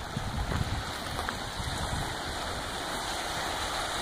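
Steady rushing noise of small lake waves lapping on a stony shore, mixed with wind buffeting the microphone in an uneven low rumble.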